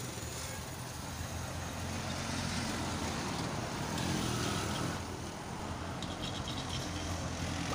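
Road traffic: a car, an SUV, passing close by on the road, its tyre and engine noise swelling to a peak about four seconds in and then fading.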